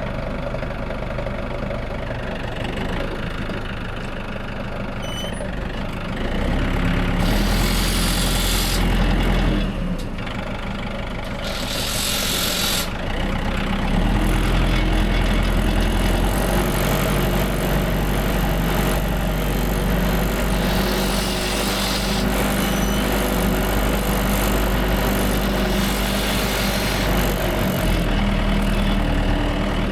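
Tractor engine running steadily, picking up speed about six seconds in and again about fourteen seconds in, with two short bursts of hiss in between.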